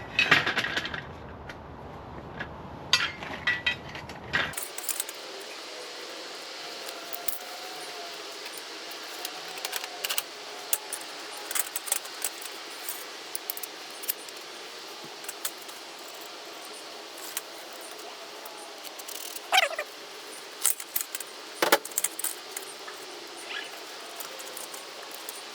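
Scattered light metallic clinks and rattles of steel pieces being handled, with a few louder clanks in the first few seconds.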